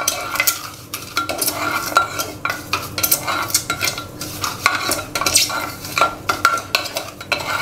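A spatula stirring and scraping dry broken wheat (dalia) around the bottom of a pressure cooker as it roasts in ghee. Irregular scrapes come several times a second, over a light sizzle.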